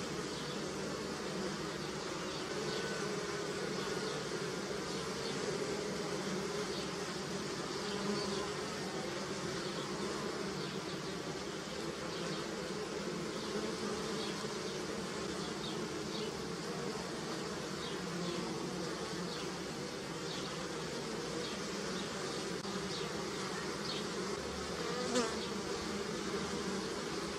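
A swarm of honeybees buzzing steadily as they forage on willow blossoms, a dense hum of many overlapping wingbeats, with a brief louder moment near the end.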